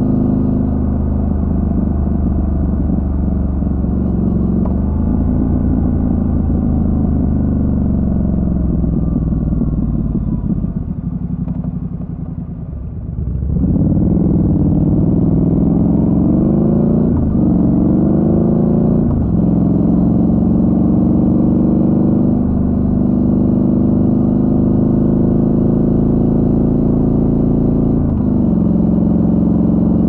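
Triumph Scrambler 1200 XC's parallel-twin engine on the move. The engine note falls and quietens as the throttle is rolled off, then about halfway through it pulls hard, its pitch climbing through two quick upshifts before settling into a steady cruise.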